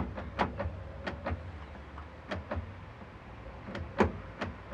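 Irregular sharp clicks and knocks of a vice grip and Allen key being handled against a car door's metal at the door handle's lock lever, the loudest knock about four seconds in.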